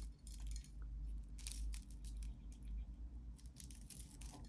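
Faint rustling and scattered small clicks as a beaded necklace is handled and worked loose from its packaging, over a low steady hum.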